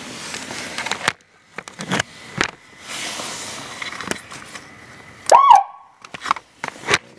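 Whelen electronic siren giving one quick chirp about five seconds in: a half-second sweep up and down in pitch that ends on a short held tone, showing the newly wired siren works. Scattered clicks and knocks come before and after it.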